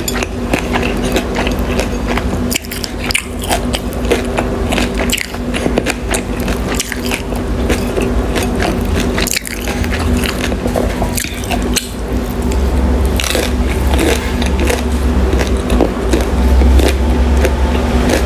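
Close-miked eating: biting into and chewing crunchy food, a dense run of crisp crackling bites over a steady low hum. A low rumble builds in the last several seconds.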